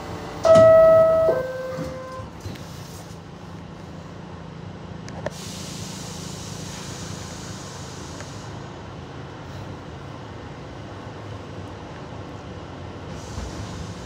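Two-tone door chime of an R62A subway car, a high note followed by a lower one, the signal that the doors are about to close. About five seconds in there is a single knock, then a hiss lasting about three seconds, over the steady low hum of the car standing in the station.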